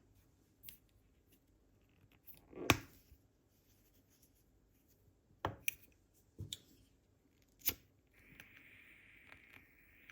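A handful of sharp clicks and knocks of small objects being handled, the loudest about three seconds in. Near the end comes a steady hiss lasting about two seconds.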